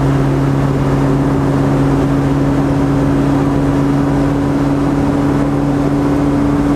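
Honda Integra Type R DC2's four-cylinder engine and road noise, heard from inside the stripped cabin while cruising at a steady speed: a loud, even drone that holds one pitch.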